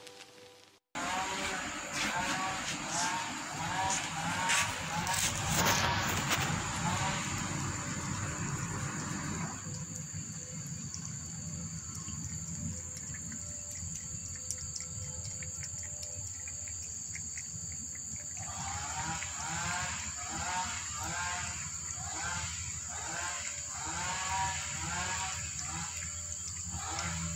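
Repeated animal chirping calls, coming in quick runs, over a steady high-pitched whine. The chirping drops away in the middle for several seconds, leaving a faint hazy background, then comes back.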